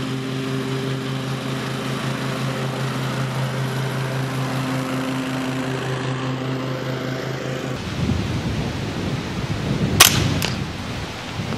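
A riding lawn mower's engine running steadily for the first eight seconds or so. Then a single shot from a .22LR integrally suppressed rifle about ten seconds in, a sharp crack followed by a smaller one half a second later.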